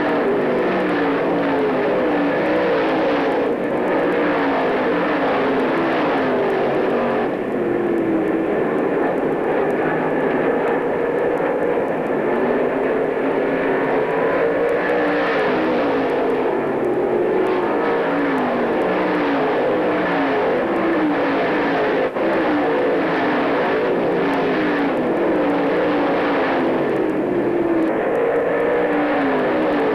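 Several dirt-track stock car engines racing at speed. Their pitch keeps rising and falling as one car after another comes through.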